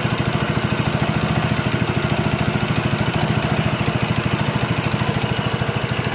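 Yamaha Mio Soul i 115 scooter's single-cylinder four-stroke engine idling steadily, with a fast, even pulsing. Its drive belt is stretched and loose, which the owner takes for the cause of the noise, the belt slapping against the CVT casing.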